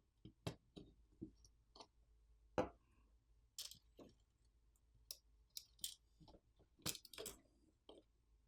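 Scattered, irregular small clicks and taps of a phone being taken apart by hand: plastic and metal parts and small tools being handled and set down, the loudest tap about two and a half seconds in and a quick run of clicks around seven seconds.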